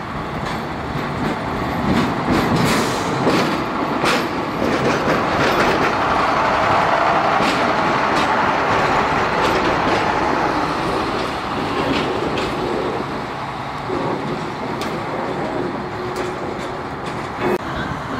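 Ex-South Australian Railways 400 class 'Red Hen' diesel railcar No. 428 passing close by, its engine running and its wheels clicking over the rail joints. The sound is loudest about midway, as the car goes past.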